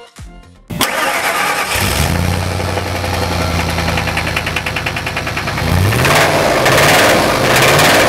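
A 1999 Ford 5.4-litre 2-valve V8 starts up about a second in and idles with a fast, even metallic knock, then is revved a few times from about six seconds in. The knock is the sign of failing bearings: the engine's oil looked like metallic silver paint.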